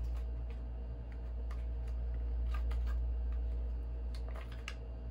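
Light cardboard handling: scattered clicks, taps and scrapes as a small kraft-paper sleeve is turned over and pried open by hand, over a steady low hum.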